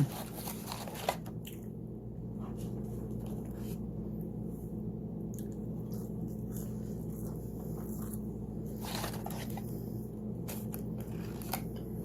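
A person chewing McDonald's fast food close to the microphone, with scattered crunchy bites and wet mouth sounds, over a steady low room hum.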